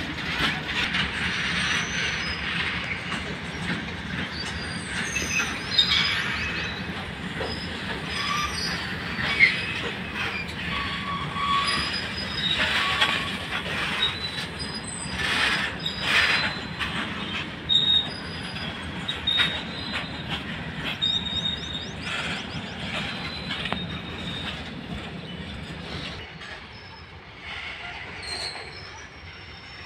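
Loaded freight wagons of a goods train rolling past on the rails: a steady rumble of wheels with many short, high wheel squeals and a few sharp clanks. The noise drops quieter about four-fifths of the way through.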